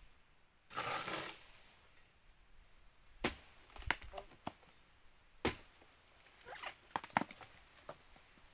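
Steady high-pitched insect buzz, with a short rustle about a second in and scattered sharp knocks and clicks from a few seconds in.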